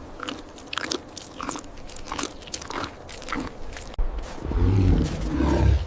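Markhor chewing, with scattered crunching bites. About four seconds in, a louder low rumbling noise comes in and lasts almost two seconds.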